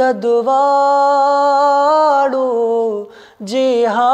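A solo voice singing a Pashto naat without instruments, holding one long steady note, pausing about two and a half seconds in, then starting the next line near the end.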